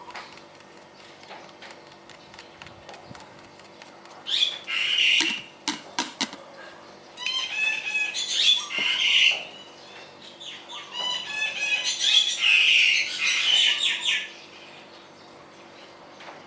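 Birds chattering and squawking in three loud bouts of rapid calls, with a few sharp clicks between the first two.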